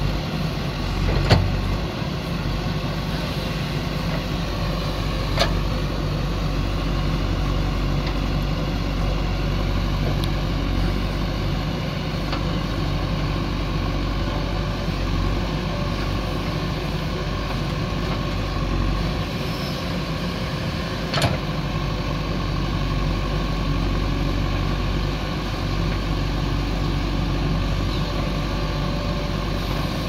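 Diesel engine of a backhoe loader or tractor running steadily, with a few short sharp knocks, the loudest about a second in.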